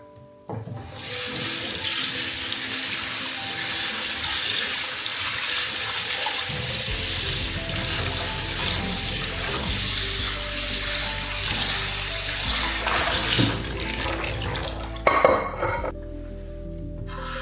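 Water tap running into a sink, a steady gush that starts about half a second in, drops a little near 13 s, splashes harder briefly, then is shut off about 16 s in.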